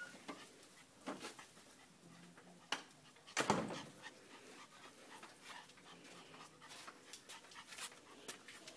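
Two puppies at play: faint panting and scuffling, broken by short sounds, the loudest a brief burst about three and a half seconds in.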